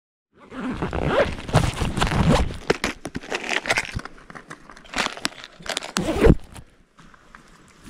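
Close handling noise from hands working through an open plastic tackle box of spinner lures: dense rustling with many sharp clicks and rattles, and a few heavier knocks midway. Clothing is rubbing against the chest-mounted GoPro. It begins suddenly about half a second in and quietens near the end.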